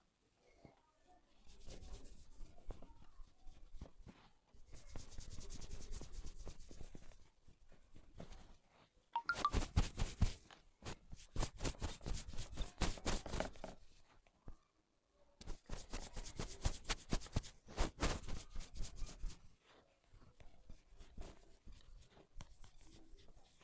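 Hands rubbing and working through oiled hair on the scalp, followed by two long runs of rapid percussive hand strokes on the head, the first about nine seconds in and the second after a short pause.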